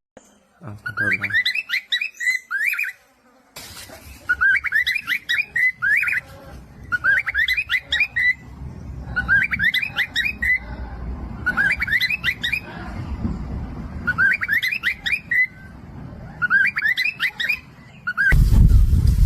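Parrot chirping in seven short phrases of quick rising notes, each phrase about a second and a half long, repeating at a fairly even pace over a faint low hum.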